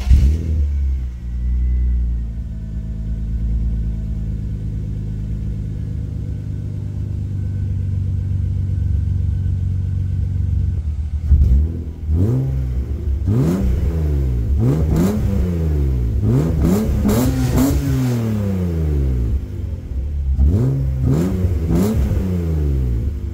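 BMW Z3 M Coupe's S52 3.2-litre straight-six starts and settles into a steady idle through Eisenmann Race axle-back mufflers on the stock headers and midsection. About halfway through it is revved in a series of quick throttle blips, each rising and falling in pitch.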